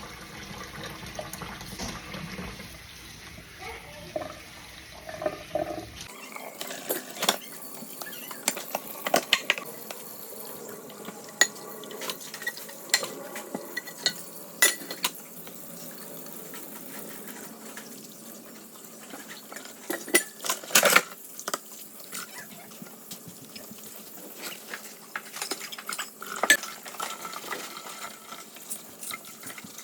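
Dishwashing at a kitchen sink: dishes and cutlery clinking and knocking against each other over running, splashing water. The sound changes about six seconds in, and from then on sharp clinks come every second or two.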